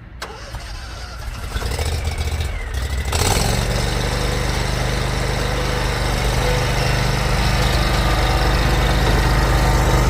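Lawn mower engine starting up and running, stepping up sharply to a louder steady run about three seconds in.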